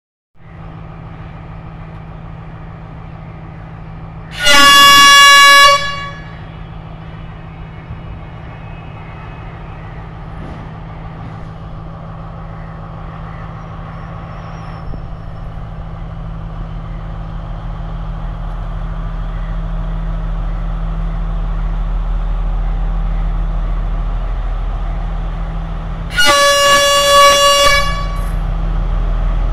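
Sri Lanka Railways Class S12 diesel multiple unit (power set) sounding its horn: one loud blast about four seconds in and another near the end. Between the blasts its diesel engine runs steadily and grows louder as the train pulls out and approaches.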